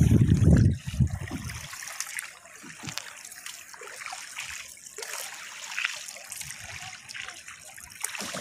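Water trickling and dripping around a small paddled boat, with scattered small drips and splashes. A loud low rumble on the microphone fills the first second and a half or so and cuts off abruptly.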